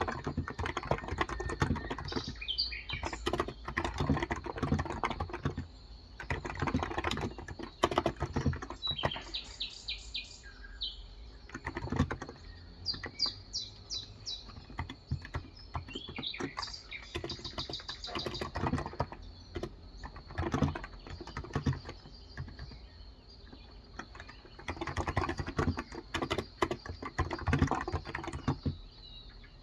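Typing on a Cox Endeavor electrostatic capacitive (Topre-style) tenkeyless keyboard with light 35 g keys, in irregular runs of keystrokes with short pauses. Small birds chirp in several short bouts behind the typing.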